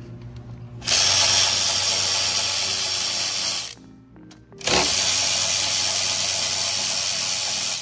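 Cordless ratchet running twice, about three seconds each time, with a high whine, spinning out 13 mm bolts.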